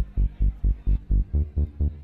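Electronic dance music with a steady kick-drum beat, about four beats a second.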